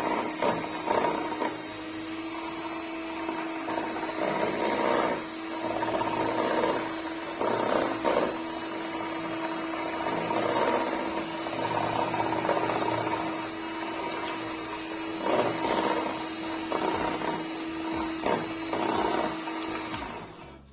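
Electric hand mixer beating eggs and sugar in a bowl: a steady motor whine with the beaters rattling and scraping against the bowl. It stops just before the end.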